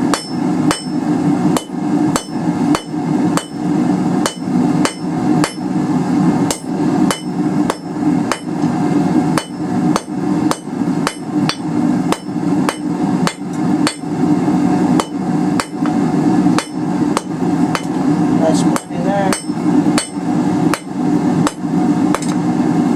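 Three-pound cross-peen hammer striking hot 3/8-inch round steel bar on an anvil, about two blows a second, each with a short high ring: forging a taper on the end of the bar. A steady low hum runs underneath.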